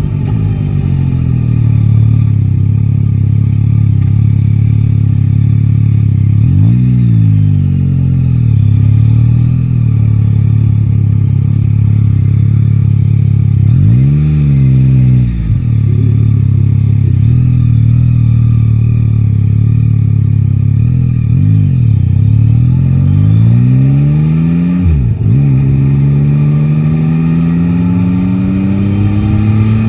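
Yamaha Tracer 9 GT's 890 cc inline-three engine running steadily under the rider, with short rises and falls in revs a few times. Near the end it climbs steadily in pitch as the bike accelerates.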